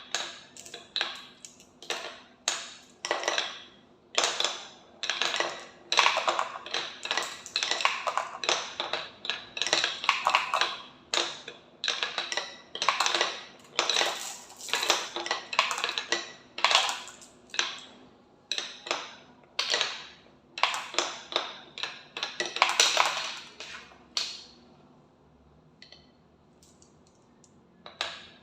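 Marbles clattering and rattling down a marble run track in a long string of quick runs, one or two a second, each fading as the marble rolls on, with a lull near the end.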